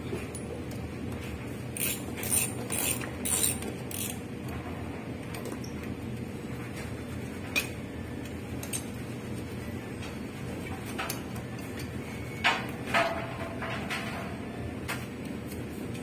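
Mechanical clicking and clinking of hand tools and metal parts being worked on a washing machine. A quick run of clicks comes a couple of seconds in, then scattered single clicks, and two sharper knocks near the end, the second with a short metallic ring. A steady low hum runs underneath.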